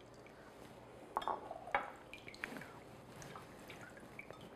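Orange juice trickling and dripping through a fine wire mesh strainer into a glass measuring cup, faint, with a couple of light clinks a little after a second in.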